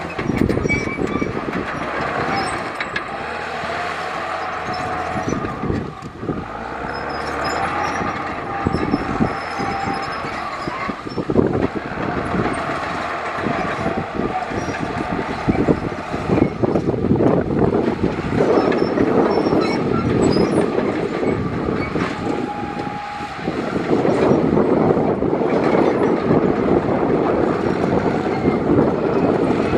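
Heavy diesel earthmoving machinery working, its engine running loud and steady under a continual clanking and rattling, heavier in the second half.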